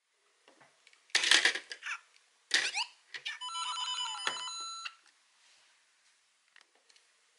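LEGO Super Mario interactive figure playing electronic sound effects through its small built-in speaker as it lands on the Piranha Plant: two short, loud bursts, then a beeping jingle of steady tones lasting about a second and a half. This is the Piranha Plant's defeat (death) sound.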